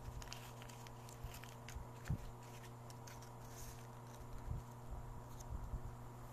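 Faint, scattered small clicks and light rubbing or handling noises over a steady low hum, with one soft thump about two seconds in.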